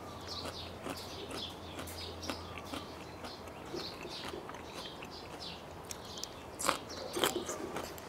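Close-miked chewing and crunching of crisp raw vegetables, a steady run of short crunches with a few louder ones near the end.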